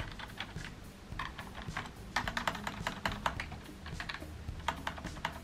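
Keys of a Microsoft Wired Keyboard 600, a membrane keyboard, being pressed in quick clusters of several keys at a time: a run of soft key clicks, thickest about two to three seconds in.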